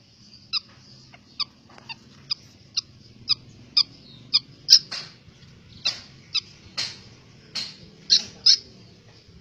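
White-breasted woodswallow (kekep babi) giving short, sharp, high calls over and over, about two a second, with a few longer, harsher calls in the second half.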